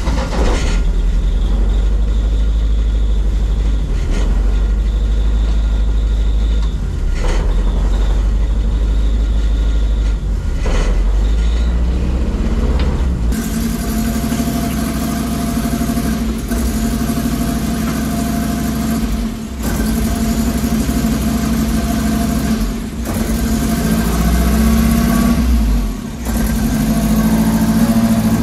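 Turbocharged Zetec four-cylinder engine of a Mk1 Ford Fiesta running through its newly built full exhaust system, which was made to tame its noise. It runs steadily at first, then harder from about halfway, with a few brief dips in level.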